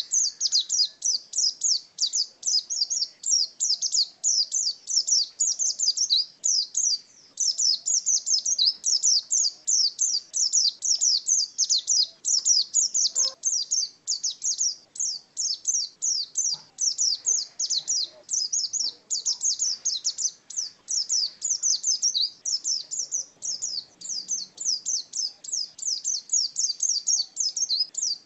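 Pleci dakun white-eye singing its long 'ngalas' song: an unbroken run of rapid, high, thin chirps, several notes a second.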